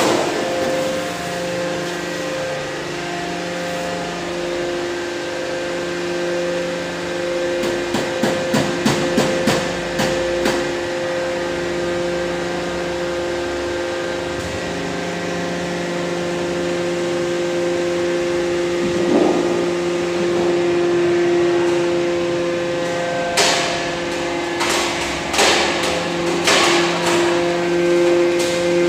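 Hydraulic door-plate embossing press's power unit running with a steady hum made of several tones, whose mix shifts as the press works through its cycle. Two bursts of sharp metallic clanks come through it, about a third of the way in and again near the end.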